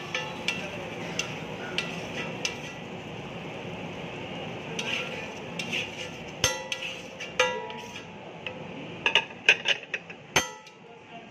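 Metal spatula scraping and tapping on a flat steel griddle: a string of sharp metallic clicks and clanks, some ringing briefly, the loudest near the end, over a steady background hiss.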